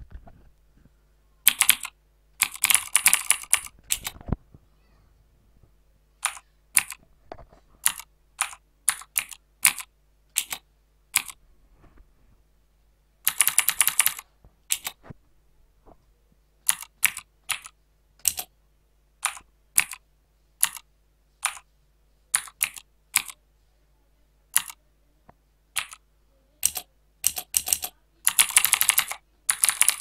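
Mechanical-keyboard key clicks simulated by the Mechvibes app as keys are typed. There are three fast runs of rapid clicks: one early, one in the middle and one near the end. Between them come single clicks about every half second.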